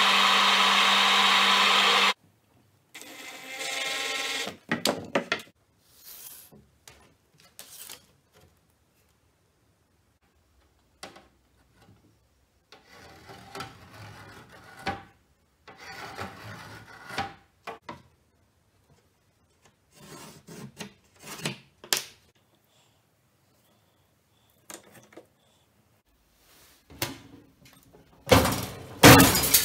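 A pillar drill runs with a steady hum for about two seconds, drilling an aluminium bar, then stops abruptly. After that come scattered knocks, rubs and handling noises of workshop tools and materials, ending with a run of loud metal clanks.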